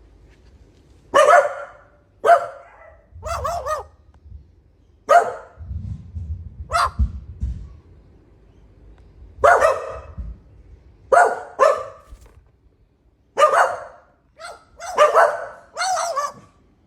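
A dog barking in single barks, about a dozen of them, spaced irregularly a second or two apart.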